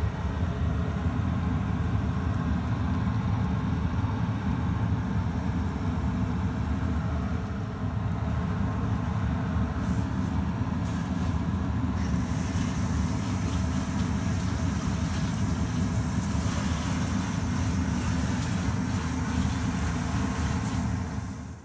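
A steady low rumble, with a brighter hiss joining about halfway through.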